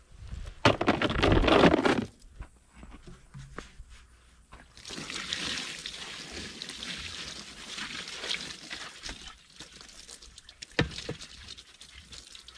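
Liquid pouring steadily from a plastic jug into a plastic trash can, soaking a coiled fabric cattle rub with a fly-repellent mixture. Shortly before, a loud burst of handling noise as the heavy rub is lowered into the can.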